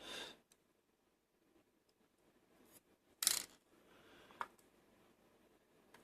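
Faint handling of the small loose parts of a gutted pin-tumbler lock: a brief clatter of tiny metal pins about three seconds in, then a single light tick a second later.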